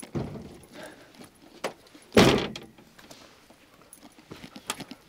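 Footsteps on a chalk-and-gravel track with scattered small clicks, and one loud thump about two seconds in.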